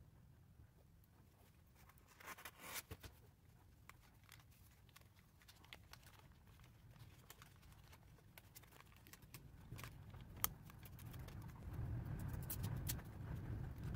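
Faint handling noises: scattered small clicks and a brief rustle about two seconds in, one sharper click about ten seconds in, and a low rumble that grows louder near the end.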